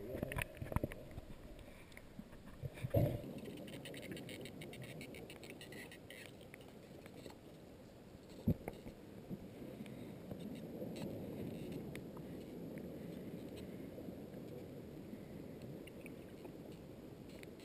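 Underwater ambience heard through a sealed GoPro housing: a muffled, steady wash of surge and moving water. A few dull knocks sound, the clearest about three seconds in and again about eight and a half seconds in, and fine crackling clicks run between about three and six seconds in.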